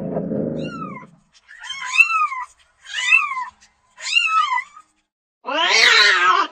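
Domestic cat meowing. A low rumble fills the first second, then come four short, high meows about a second apart, each rising and falling in pitch. A longer, louder, harsher meow follows near the end.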